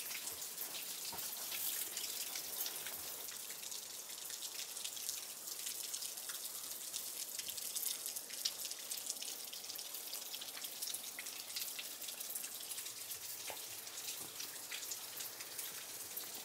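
Quiet, irregular patter of small water drops falling, many light ticks over a soft steady hiss.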